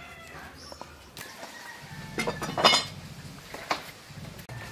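Metal spoon clinking against metal cookware, a handful of scattered clinks, the loudest in a quick cluster a little past two seconds in.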